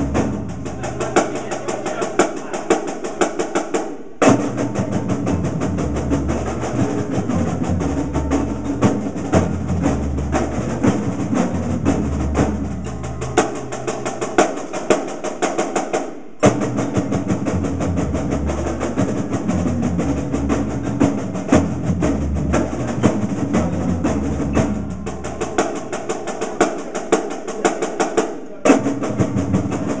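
Drumline of marching snare drums with other percussion playing a triplet diddle warm-up exercise: a dense, continuous stream of rapid strokes. The playing breaks off briefly three times, about every twelve seconds, as the exercise repeats.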